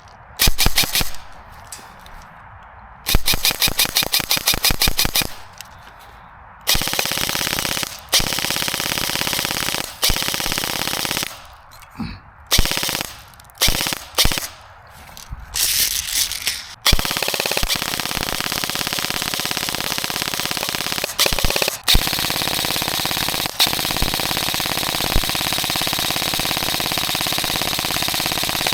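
Airsoft gun firing on full auto: a few short bursts, then long strings of rapid shots with brief pauses, near-continuous through the second half.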